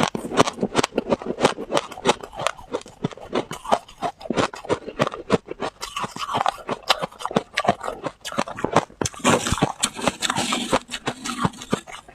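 Freezer frost being chewed, a quick, irregular run of crisp crunches and crackles close to the microphone.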